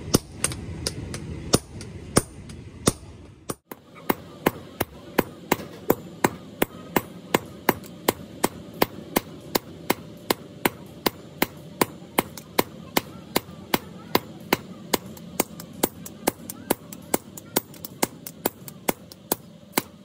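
Sledgehammers beating red-hot truck leaf-spring steel on an anvil during hand forging: sharp blows at an even pace of about three a second, with a short break about three and a half seconds in.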